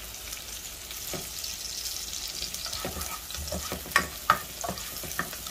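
Chopped onions and garlic sizzling in hot olive oil in a frying pan as they are stirred and browned, with a couple of sharp knocks about four seconds in.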